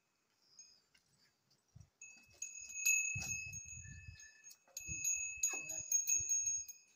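Small metal bells on the bullocks' neck ropes jingling and ringing as the animals are led forward, starting about two seconds in, with a few dull low thuds.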